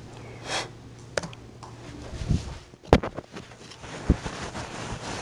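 Scattered clicks and knocks at a lectern as a laptop is worked, with the sharpest knock about three seconds in, over a steady low hum from the room's sound system.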